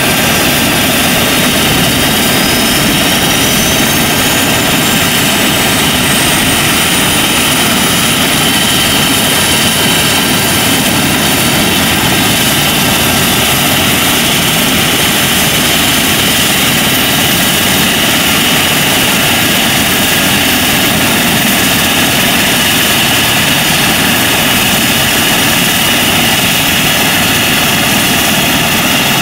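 Eurocopter EC135 helicopter on the ground with its twin turbine engines running and main rotor turning, a loud, steady whine and rush. A thin high whine climbs in pitch over about the first ten seconds, then holds steady.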